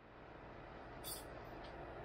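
Faint steady hum and hiss of room tone, with a short soft high hiss about a second in.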